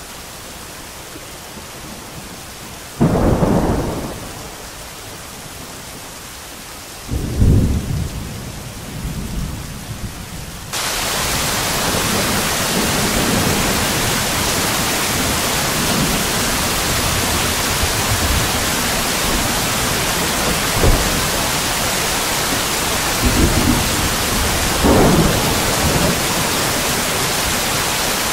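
Rain and thunder. Two sharp thunderclaps come a few seconds in, each trailing off in a rumble. About ten seconds in, the rain suddenly becomes much louder and heavier, and more rumbles of thunder follow near the end.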